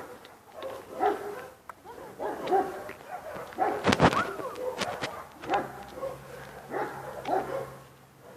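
A dog barking repeatedly in short calls, with a single sharp knock about four seconds in.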